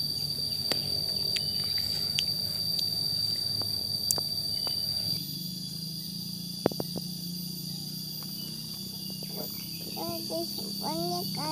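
Steady high-pitched drone of insects, with a few sharp clicks. Near the end a small child makes short vocal sounds.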